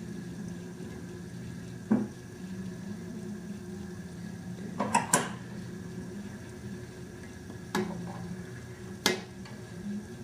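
Pacifica Glyde Torc 400 potter's wheel running with a steady hum, its new drive belts freshly tensioned so they no longer slip or squeal. About five sharp metallic clicks sound over it, two close together in the middle.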